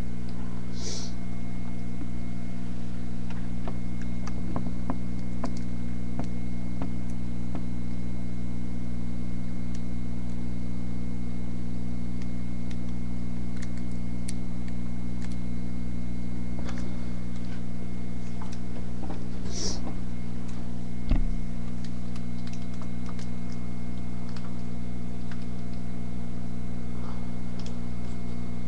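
A steady low mechanical hum, like a motor or fan running, unchanging throughout. Two brief high squeaks come about a second in and again about twenty seconds in, and a short low thump follows soon after the second.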